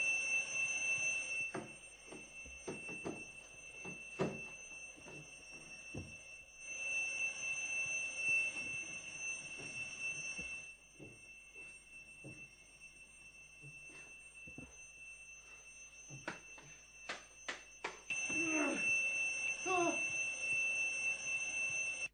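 Alarm clock ringing with a steady high-pitched tone. It stops about a second and a half in, rings again for about four seconds from roughly seven seconds in, and rings again near the end. Scattered knocks sound in the gaps.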